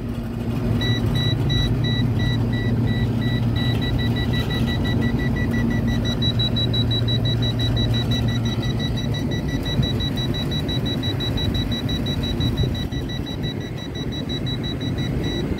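Toptes combustible gas leak detector sounding its alarm as a rapid, steady beeping, set off by natural gas at the probe as the reading climbs to its 9999 ppm maximum. The beeping starts about a second in and stops near the end, over a steady low rumble.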